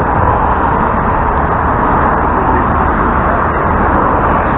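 LiAZ-677M city bus under way, heard from inside the cabin: the steady drone of its ZIL V8 petrol engine mixed with road and body noise.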